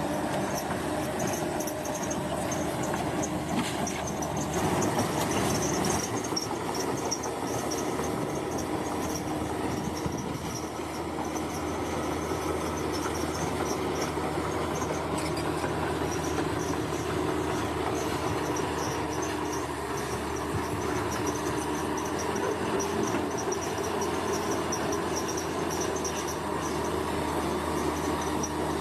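Large bulldozer working: its diesel engine runs steadily under load amid the clatter of its steel tracks, with a high, pulsing chirr throughout.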